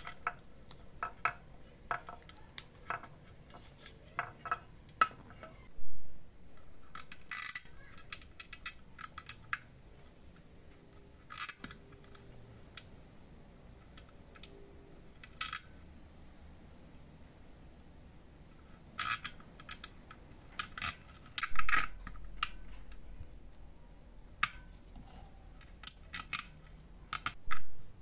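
Metal parts and hand tools clicking and clinking as they are handled, in irregular bursts, with three louder knocks about 6 s, 21 s and 27 s in.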